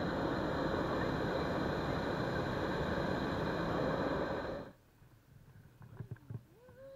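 Hot-air balloon propane burner firing in one steady blast of about four and a half seconds, then cutting off abruptly, heating the envelope during lift-off.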